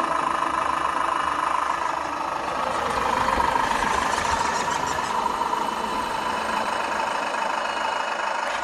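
1/18 scale RC MAN Kat 1 truck running, giving a steady, engine-like drone with a constant whine.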